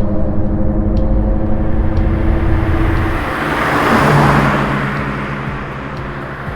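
Seat Ibiza III's 1.2-litre 12-valve three-cylinder engine running at a steady rpm, then, about three seconds in, a rising and falling whoosh of the car passing by, loudest a little after four seconds. It settles to a lower steady drone near the end.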